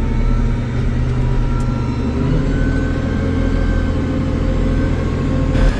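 Tractor engine running steadily: a low, even drone with a faint high whine above it.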